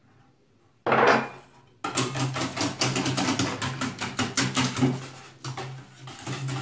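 Wire whisk beating batter in a stainless steel bowl: rapid, dense clicking of the wires against the metal from about two seconds in, preceded by a short noisy sound about a second in. A steady low hum runs underneath.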